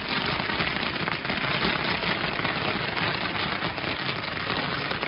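Fireworks crackling: a dense, steady stream of small pops and crackles with no single large bang.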